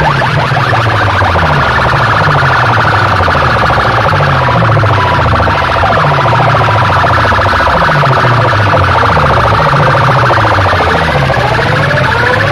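A stack of horn loudspeakers blaring a loud, siren-like electronic effect over a pulsing bass: quick rising sweeps repeat throughout, slower rising sweeps return near the end.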